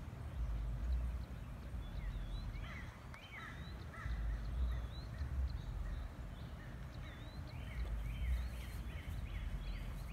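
Birds chirping in short, gliding notes, which come in a quick run of about three a second in the second half. Under them is an uneven low rumble of wind buffeting the microphone.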